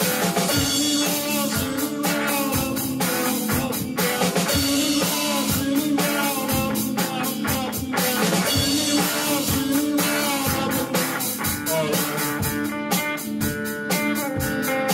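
Small rock band playing live: electric guitar and drum kit keeping a steady beat, with a man singing over them for parts of the passage.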